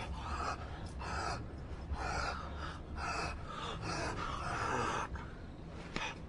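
Heavy breathing in a quick run of noisy gasps, roughly one or two a second, that breaks off about five seconds in, with one more breath near the end.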